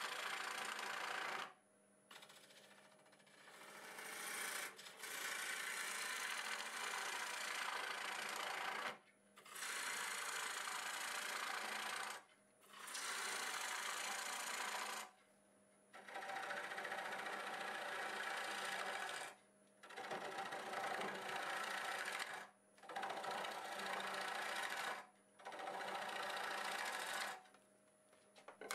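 A half-inch bowl gouge cuts into a wet green cherry bowl spinning on a wood lathe, hollowing out the inside. There are about eight cutting passes of two to four seconds each, with short pauses between them where only the lathe's faint hum is left.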